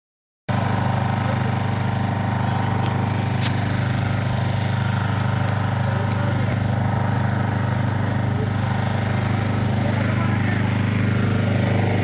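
An engine running steadily at a constant speed: a low drone with a fast, even pulse.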